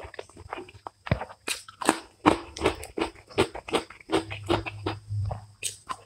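Close-miked chewing of rice and fish curry eaten by hand: an irregular run of short clicks, about two or three a second.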